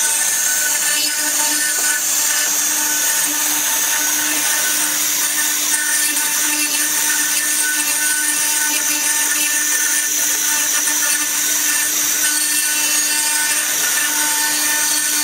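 Stone CNC router's spindle running steadily as its carving bit cuts into a rotating stone workpiece: a constant hum with a strong high hiss.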